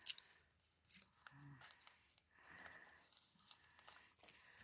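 Faint rustling of a paper pattern piece and a foam craft sheet being handled, with a sharp tap right at the start and a softer one about a second in.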